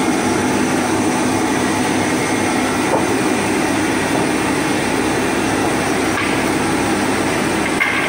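MSP-800 multi-rip circular saw machine running steadily, ripping glued plywood into strips in one pass. It makes a loud, even machine noise with a faint low hum under it.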